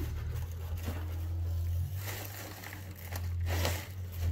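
Light rustling and crinkling handling noise, with a few soft scrapes, over a steady low hum.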